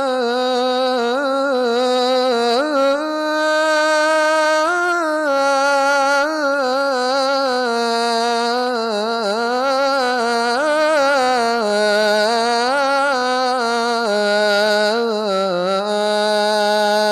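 A man's voice chanting the Shia adhan (call to prayer), drawing out the phrase 'hayya 'ala al-falah' in one long unbroken melismatic line whose pitch winds up and down.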